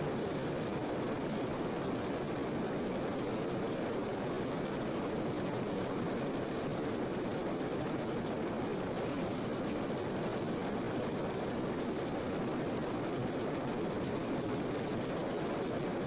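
Steady rushing water: an even, unbroken noise that does not change.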